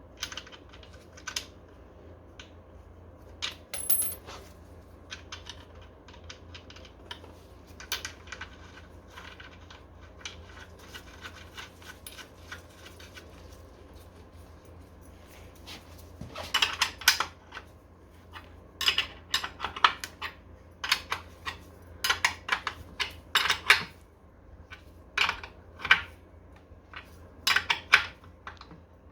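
Small metal parts and hand tools being handled during scooter repair work: scattered sharp clinks and clicks, sparse at first and coming in quick clusters from about halfway through.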